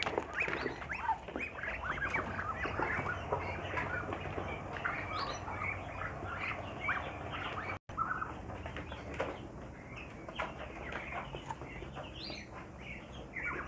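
A flock of Muscovy ducks feeding from a basin of mash: a busy, quick patter of bill clicks and pecks in the feed, with short bird calls mixed in.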